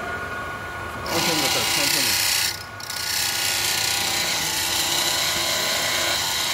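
Manual lathe's geared headstock running at high spindle speed: a loud mechanical gear whine and rattle that starts abruptly about a second in, dips briefly near the middle, then runs on steadily.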